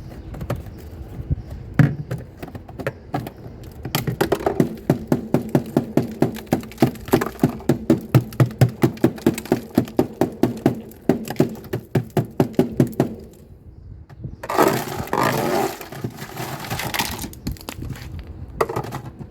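Hard ice on a refrigerator's evaporator being chipped and cracked with a tool: a fast run of sharp knocks, about four or five a second, for some nine seconds. Then comes a louder burst of noise lasting a couple of seconds.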